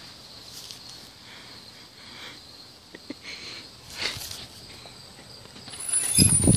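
Steady high insect buzzing with a few faint ticks, then a loud rumbling thump near the end.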